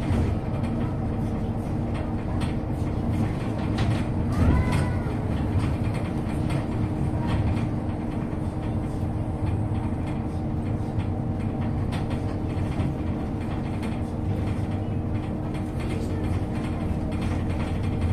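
MAZ-215 articulated diesel city bus heard from inside the passenger cabin while driving: a steady engine and drivetrain drone with rattles and knocks from the body. A brief squeal rises and falls about four and a half seconds in.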